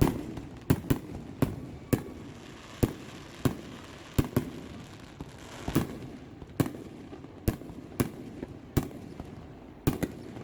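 Fireworks exploding in a steady, irregular string of sharp bangs, roughly one or two a second, over a low rumble of more distant bursts.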